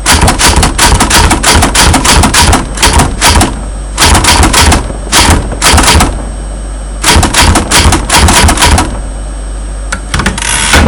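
Typewriter sound effect: runs of rapid key clicks in several bursts with short pauses between them, over a steady low hum.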